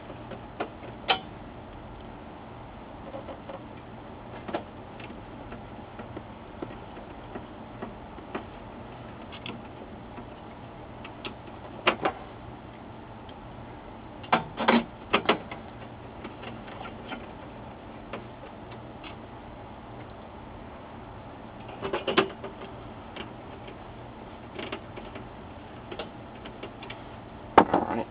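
Scattered small clicks and taps of a screwdriver and screws on the printer's sheet-metal chassis, with a few short clusters of clicking over a faint steady hum.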